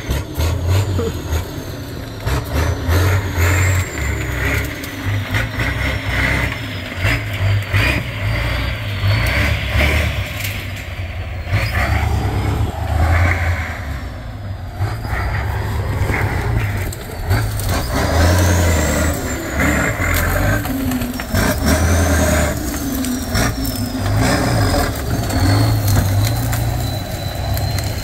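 Tatra trial truck's diesel engine revving up and easing off again and again as it forces its way through thick brush, with repeated cracks and snaps of branches breaking under it.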